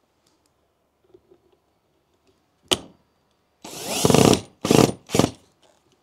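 Cordless drill/driver driving a screw: a sharp click about two and a half seconds in, then the motor runs for about a second, followed by two short bursts on the trigger.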